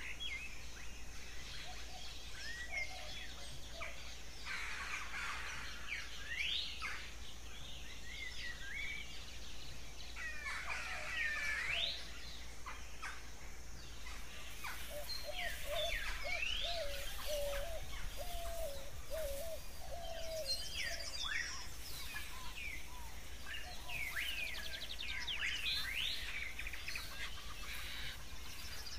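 Birdsong ambience: many birds chirping and whistling, with short calls that rise and fall, and a run of quick lower notes in the middle.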